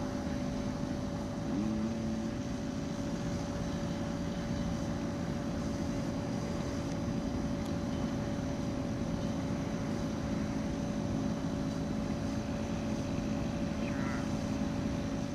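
RC model Zlin Z-50's engine idling steadily on the ground, with a brief rise in pitch about two seconds in.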